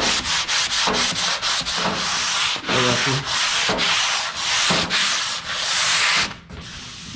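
Fine-grit sanding sponge rubbed back and forth by hand over a primed cabinet door: a light scuff-sanding of the primer. Quick strokes, about three a second at first, then longer sweeps, stopping shortly before the end.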